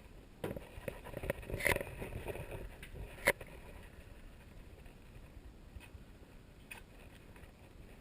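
Low rumble of camera handling noise with a few scattered knocks and clicks, the sharpest about three seconds in.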